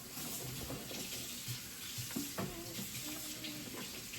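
Water running steadily from a tap, a continuous even hiss.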